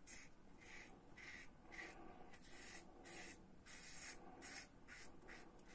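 Goodfellas Italiko double-edge safety razor with a Feather blade scraping through lathered stubble: a faint rasp with each short stroke, about two to three strokes a second.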